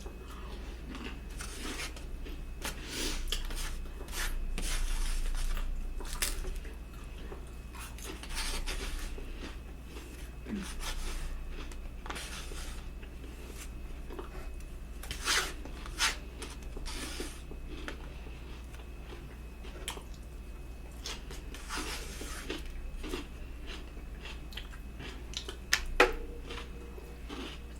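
Close-miked chewing and lip smacking from someone eating a meal of spaghetti, garlic bread and salad with croutons. Wet mouth clicks and crunches come irregularly, with a few sharper clicks standing out.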